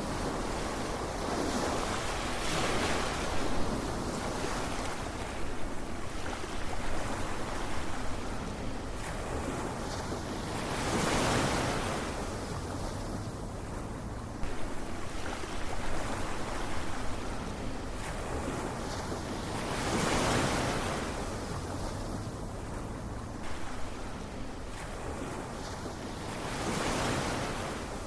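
Ocean waves breaking and washing ashore, the surf swelling to a peak about every eight to nine seconds.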